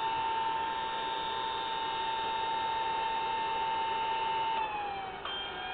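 Collins 618T airborne HF transmitter running, its cooling blowers giving a steady high whine over a hiss, quite noisy. Near the end the whine drops in pitch and there is a click, then the whine slowly rises again.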